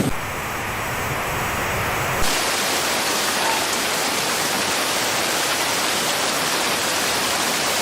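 Rushing water, a steady dense noise with no pitch. About two seconds in it changes abruptly, turning brighter and hissier.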